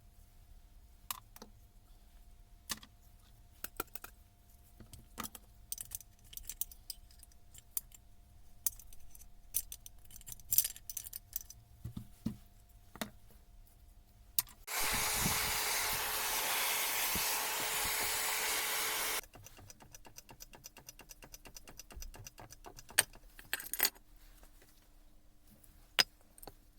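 Small metal parts and tools clinking and rattling as they are handled, in many scattered sharp clicks. Partway through, a loud steady rushing noise starts abruptly, runs for about four and a half seconds and cuts off suddenly.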